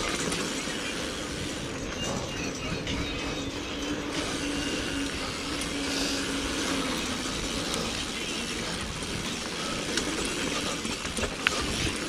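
Single-speed mountain bike riding along a dirt trail: steady tyre and rolling noise with the bike rattling and a few scattered clicks.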